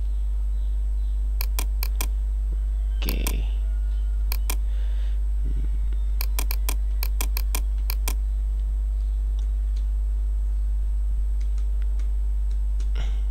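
Computer keyboard keys clicking in short runs as a label is typed in, over a steady low electrical hum.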